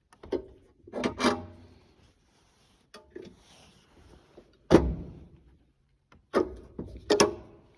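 Bathroom exhaust fan housing being handled and prepped, giving scattered knocks and clanks. A couple of them carry a brief ringing tone, and the loudest knock comes about halfway through.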